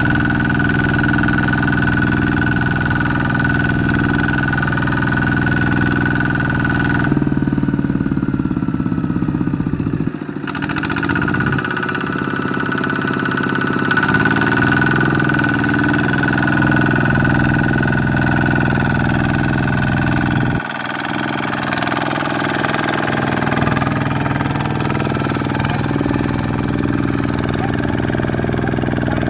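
Kubota ZT140 single-cylinder diesel engine of a two-wheel walking tractor running under load as it pulls a loaded rice trailer through deep mud. The engine note changes abruptly a few times between shots.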